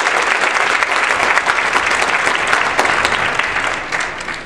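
Theater audience applauding, a dense, steady clatter of many hands clapping that dies down near the end.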